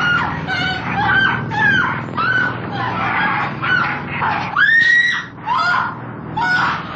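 A woman screaming in terror, a rapid string of short, high, arching shrieks over a low, steady droning rumble.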